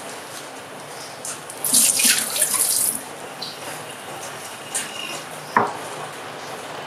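Water splashing into a stainless steel kitchen sink for about a second, over a steady hiss. A single sharp knock comes near the end.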